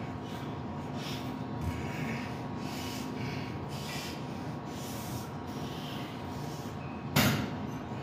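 A man's heavy breathing, with short forceful exhales every second or so, during one-arm dumbbell rows, over a steady hum. A single sharp knock about seven seconds in is the loudest sound.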